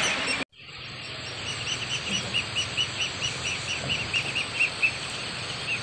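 Outdoor ambience: a small creature chirping in a fast, even series of short high chirps, about four to five a second. The sound drops out for an instant about half a second in.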